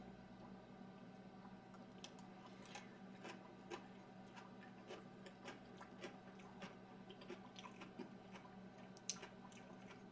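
Near silence: faint, irregular clicks of a metal spoon on a ceramic bowl and quiet chewing, over a low steady hum.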